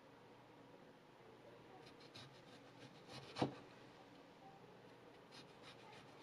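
A VG10 Damascus-steel chef knife slicing through an orange, with a few faint crisp cuts through the peel and then one sharp knock as the blade meets the wooden cutting board about three and a half seconds in.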